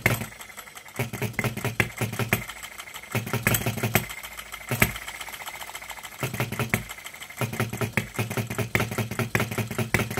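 Miniature Baker Monitor ball-top hit-and-miss petrol engine firing unevenly: a fast run of ticks with deeper bursts of about a second that break off and pick up again several times, longest near the end. The engine is nearly running but not quite catching and keeping going on its own.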